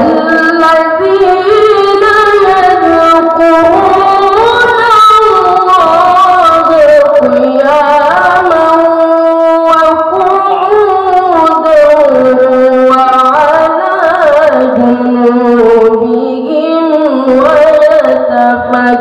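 A boy's voice in melodic Quran recitation (tilawah), amplified through a handheld microphone. It begins suddenly and holds one long ornamented phrase of wavering, sliding pitch, settling lower near the end.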